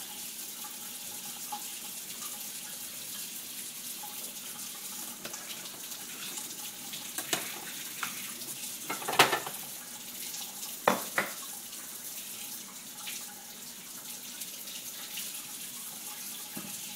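Kitchen faucet running steadily into a sink, the stream splashing over a child's hands and the item being rinsed. A few short, sharper noises stand out around the middle.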